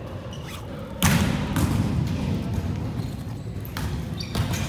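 Thuds of a volleyball during play on a wooden gym floor, echoing in a large hall. The loudest comes about a second in, with a few lighter knocks after it and near the end.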